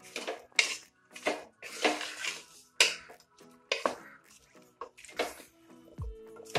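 A spatula scraping and stirring chunks of raw buffalo meat with shallots and spice powders in an aluminium pressure cooker, in repeated strokes about one or two a second. Background music plays underneath, and a low drum beat comes in near the end.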